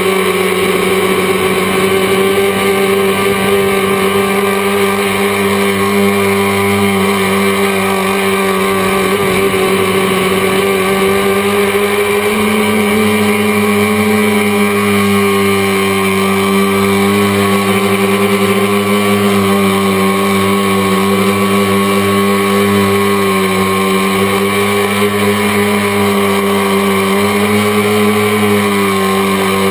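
A tricopter's electric motors and propellers buzzing steadily in flight, picked up by the onboard camera. The pitch wavers a little and steps up slightly about twelve seconds in.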